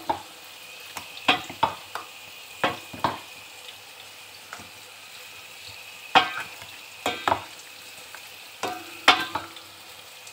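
A spoon knocks and scrapes against a stainless steel bowl as marinated chicken pieces are mixed: about ten knocks, mostly in pairs, some leaving a brief metallic ring. Under them is a faint, steady sizzle of garlic, onion and ginger frying on low heat.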